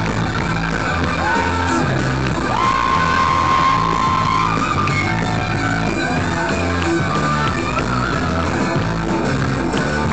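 Loud rock music with a vocal line. About two and a half seconds in, a high note rises and is held for about two seconds.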